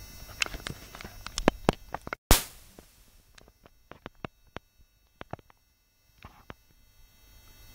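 Irregular sharp clicks and taps, closely spaced at first, with one loud knock about two seconds in, then a few scattered clicks.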